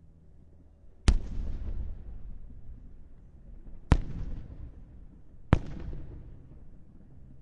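Fireworks going off: three sharp bangs, about a second in, near four seconds and about five and a half seconds in, each followed by a rumbling tail that fades over a second or two.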